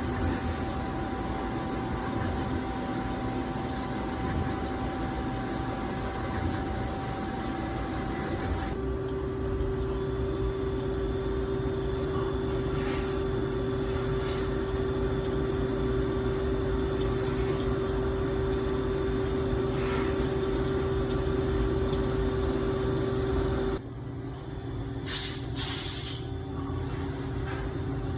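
CNC lathe running with a steady machine hum and tone; about nine seconds in the tone drops to a lower steady pitch, as with a spindle speed change. Near the end the running note falls away and two short, loud hisses follow.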